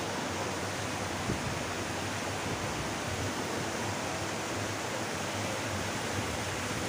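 Stream water rushing and foaming over a small drop close by, a steady, even rush.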